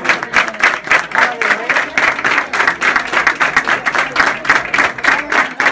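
Crowd clapping hands together in unison at a fast, even beat, with voices among them.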